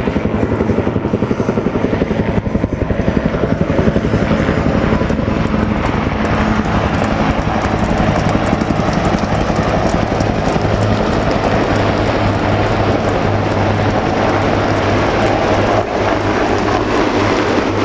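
A formation of Marine Corps AH-1 Cobra and UH-1 Huey helicopters flying low past, a loud, steady, rapid beating of many rotor blades over a low turbine hum.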